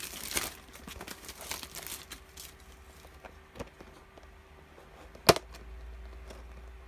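Clear plastic wrapping crinkling as a plastic compartment organizer is handled, loudest in the first half second and fading over the next second or so into light rustling. A single sharp click comes a little past five seconds in.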